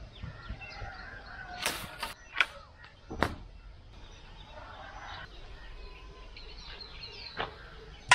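Faint outdoor ambience with birds chirping, broken by a few sharp knocks, the loudest about two and a half seconds in.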